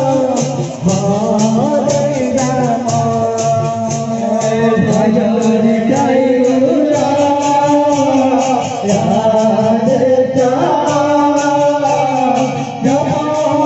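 Devotional nama sankirtana music: a chant sung over percussion keeping a steady, quick beat.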